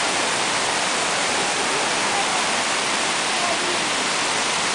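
Steady rushing of a glacial lake outburst flood: a muddy, silt-laden torrent pouring through a boulder channel just below.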